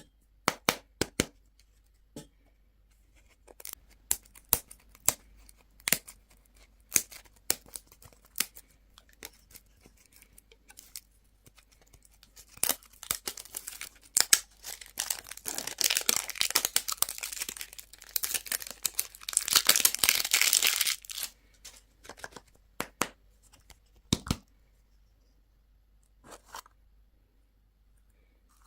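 Plastic candy packaging being handled and torn open. Scattered sharp clicks and crackles come first, then, about twelve seconds in, a dense stretch of crinkling and tearing lasting around nine seconds, and a few more clicks after it.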